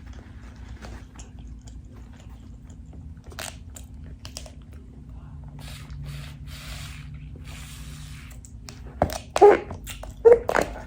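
A person chewing food close to the microphone, with quiet mouth clicks, then several louder sharp bites or smacks near the end.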